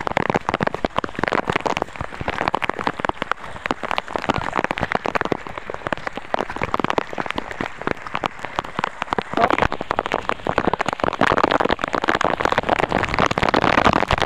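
Steady rain, many drops striking close by in a dense crackle, growing a little heavier in the second half.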